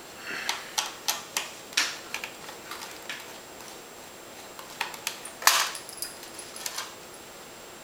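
Small screwdriver ticking and clicking on the screws of a Sony Vaio VGN-SR190 laptop's plastic RAM cover as they are backed out: a run of light clicks, then a louder cluster of clicks about five and a half seconds in.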